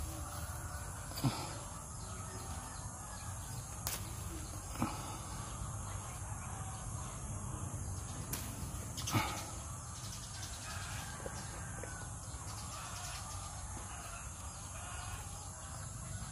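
Outdoor ambience of insects droning steadily at a high pitch, with faint bird calls and a few short knocks and rustles, the loudest about nine seconds in.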